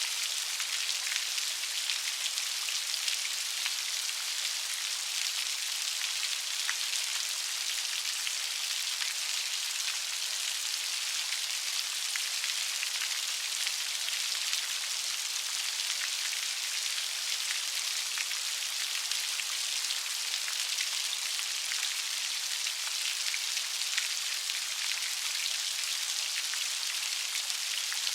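Steady light rain: an even hiss of drops pattering on a surface, with faint scattered ticks of single drops.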